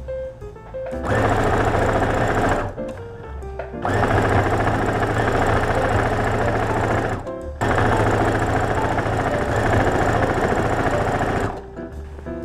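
Brother Innovis NV2600 computerized sewing machine stitching a gathered seam in three steady runs of a few seconds each, stopping briefly between them.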